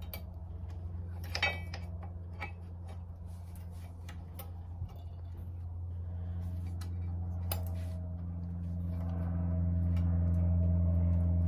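Small metal clicks and clinks of brake pads and tools being handled at a motorcycle's rear brake caliper, with one brief metallic ring about a second and a half in. Under them runs a steady low hum that grows louder toward the end.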